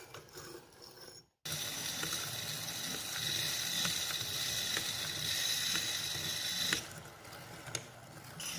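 Hand-cranked blacksmith's grinding stone turning through its water bath: a steady wet swishing with a mechanical rattle from the crank, starting about a second and a half in and easing off near the end.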